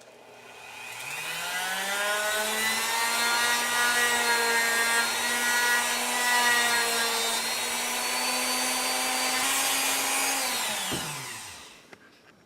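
Dremel rotary tool spinning up with a rising whine, running steadily while grinding a bevel into the edge of a PVC pipe coupler, then winding down about eleven seconds in.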